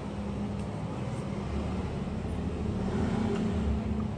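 Steady low rumbling background noise, with faint clicks of chewing.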